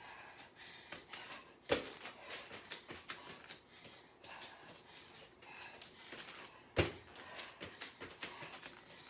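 A woman's breathing in short puffs during a surrender-and-broad-jump exercise, with two sharp thuds on the floor, a couple of seconds in and again near seven seconds.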